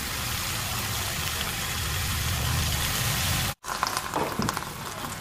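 Snow peas sizzling in a wok over a gas burner: a steady hiss with a low rumble beneath it. After a cut about three and a half seconds in, the sizzle is quieter and a metal spoon clicks and scrapes against the wok.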